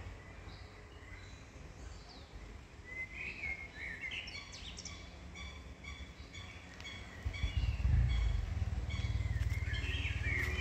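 Woodland birds singing, with many short chirps and trills. About seven seconds in, a loud low rumble sets in under the birdsong.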